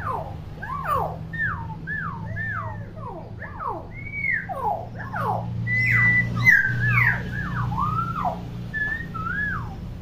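Common hill myna giving a fast run of clear whistles, about two short swooping notes a second, most of them falling in pitch, with one held high note about six seconds in. A low steady hum runs underneath.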